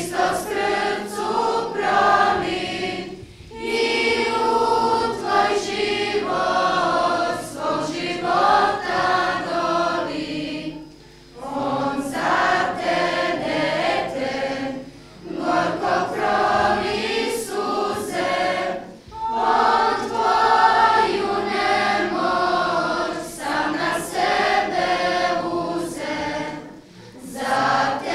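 Church choir singing a religious song in phrases of a few seconds each, with short pauses for breath between them.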